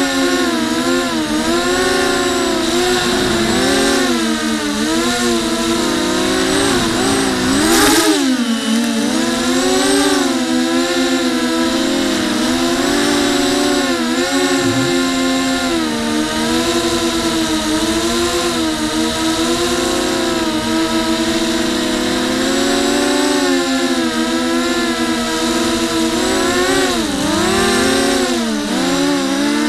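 Quadcopter's electric motors and propellers whining, heard from its onboard camera, the pitch constantly rising and falling. A brief sharp noise about eight seconds in stands out as the loudest moment.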